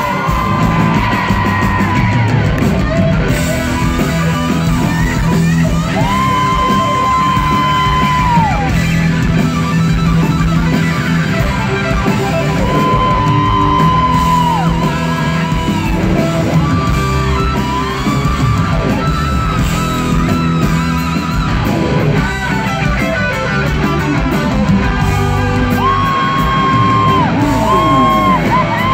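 Rock band playing live and loud: electric guitar over a full band, with several long held notes that bend in pitch at their ends.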